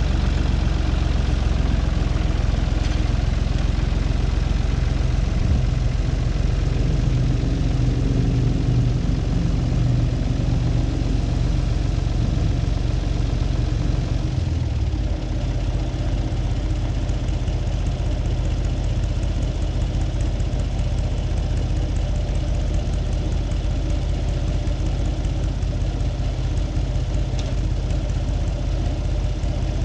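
Tractor engine running steadily; its note and loudness shift slightly about halfway through.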